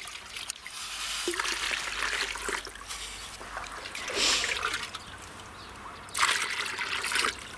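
Water pouring and trickling in uneven spurts with some splashing, loudest about four seconds in and again from about six to seven seconds.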